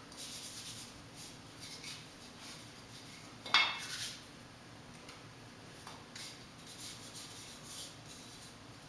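Hands rubbing a block of gym chalk, heard as short, soft, scratchy strokes, with one sharp clack about three and a half seconds in.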